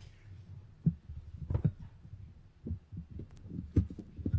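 Irregular low thuds and knocks, about half a dozen in a few seconds, from people moving about: footsteps and bumps.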